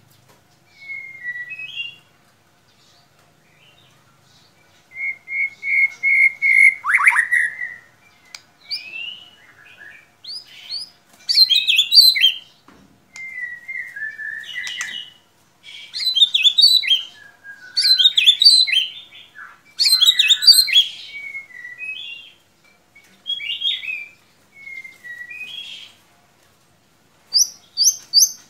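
White-rumped shama (murai batu) singing: a varied string of whistled phrases and chattering notes in short bursts with brief pauses, ending in a quick run of high, evenly repeated notes.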